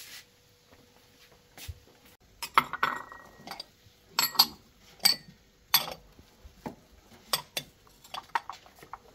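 Ceramic bowls clinking against one another as they are lifted from and set back on a stack, a series of sharp clinks beginning a couple of seconds in.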